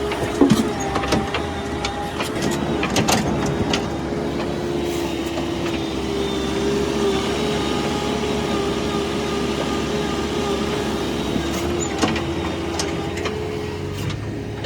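Vehicle engine running at a steady, unchanging pitch, with a few sharp clicks in the first few seconds.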